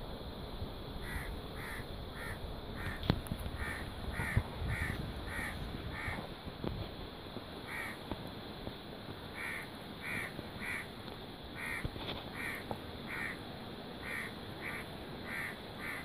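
A crow cawing over and over, about two harsh caws a second, in runs broken by short pauses.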